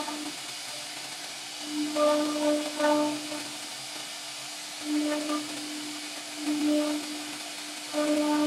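CNC router spindle carving a wooden door panel: a steady hissing whir with a low hum that swells and fades every second or two as the bit cuts.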